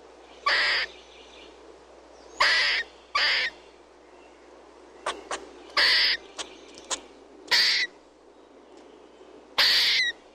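Squirrel chirping: six loud, harsh calls, each about a third of a second long, at uneven gaps of one to two seconds. Short, sharp chips come between them midway.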